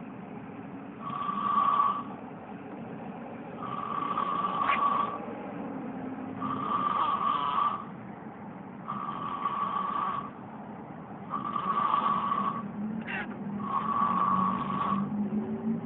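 Turtle snoring in its sleep: six wheezy breaths at an even pace, about one every two and a half seconds, each carrying a steady whistling note.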